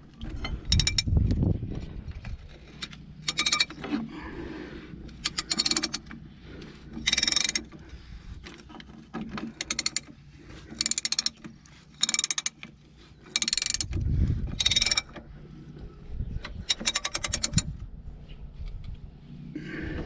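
Socket ratchet wrench clicking in about a dozen short runs of rapid clicks as it is swung back and forth, tightening a nut.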